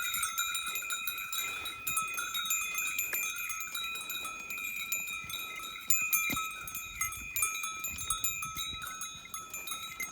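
Bells on working bulls jingling steadily as the animals pull a field-levelling board, a continuous metallic ringing with many small clinks.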